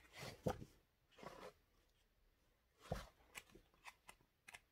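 Faint paper rustling and flicking as sheets of a scrapbooking paper pad are bent and leafed through, a handful of short scattered crackles.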